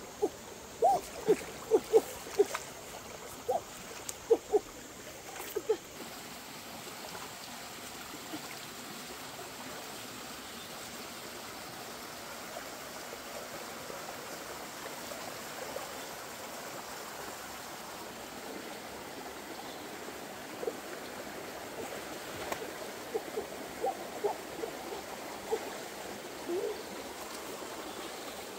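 Stream water running steadily, broken by clusters of sharp splashes and hollow plops as a wicker basket and hands are worked in waist-deep water. The plops bunch in the first few seconds and again in the last third.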